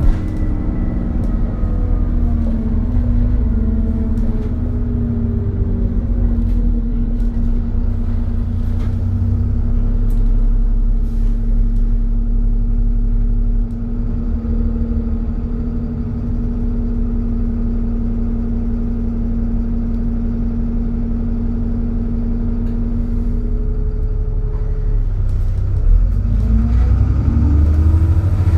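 Alexander Dennis Enviro400 Trident double-decker bus heard from on board. The engine note falls at the start, then holds a steady drone at one pitch for about twenty seconds, the vacuum-cleaner-like "hoover" sound. The engine revs rise again near the end as the bus accelerates.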